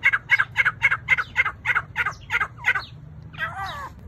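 Grey francolin calling: a fast run of sharp, repeated notes, about three a second, that fades out, followed near the end by a different wavering call.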